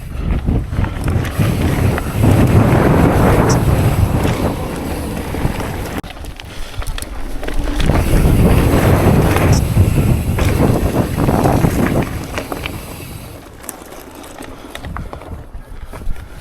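Wind rushing over a chest-mounted camera microphone while a mountain bike is ridden fast down a trail, mixed with tyre and rattle noise. It swells twice, for several seconds each time, and eases off near the end.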